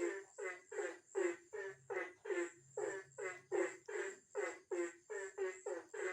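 Frogs croaking in a steady run of short calls, about three a second, over a thin, continuous high-pitched whine.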